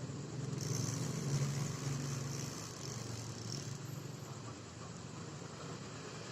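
A motor vehicle's engine running, loudest about a second and a half in and then slowly fading away.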